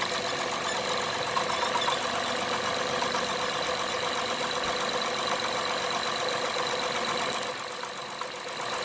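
2012 Acura TL's V6 engine idling steadily with a rapid ticking, the noise the owner is recording as a fault. The level drops a little near the end.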